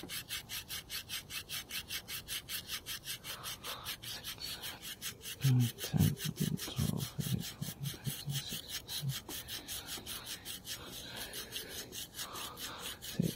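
Rapid back-and-forth scrubbing on a motorcycle rear brake caliper, about six strokes a second, cleaning grime from around the pistons and underside. A few duller knocks come in the middle.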